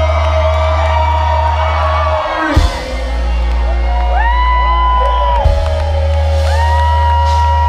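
Loud live band music with a heavy, steady bass and sustained notes that slide up into long held pitches, with a sudden low hit twice, and fans whooping over it.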